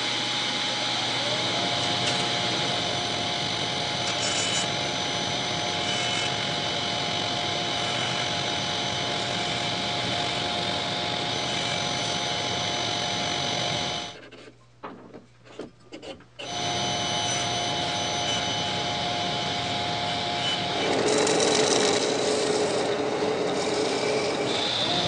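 Table saw running while a laminated wooden wheel is turned on its shaft against the blade, trimming the rim true and parallel to the shaft. The sound drops out briefly about 14 seconds in, then resumes. About 21 seconds in it changes to a louder belt sander grinding on the wheel's rim.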